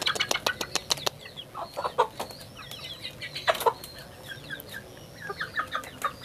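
Several chickens clucking, with a quick run of sharp clicks in the first second and a few louder calls in the middle.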